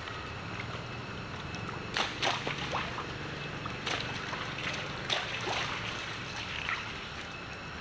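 Macaques splashing and sloshing in a shallow rainwater puddle: a string of sharp splashes and knocks between about two and seven seconds in, over a steady hiss.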